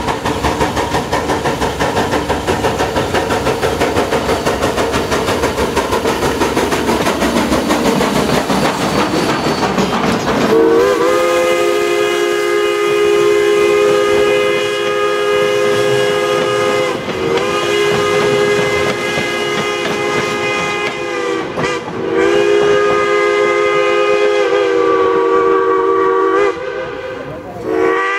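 Steam locomotive working, its exhaust chuffing rhythmically, then its chime whistle sounding from about ten seconds in: three long multi-note blasts with short breaks between, and another starting at the very end.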